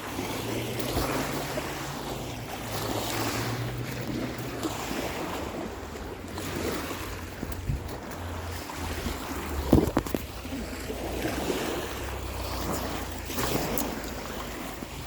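Lake Erie waves washing against the shore in repeated swells, with wind rumbling on the microphone. A few brief sharp knocks stand out, the loudest about ten seconds in.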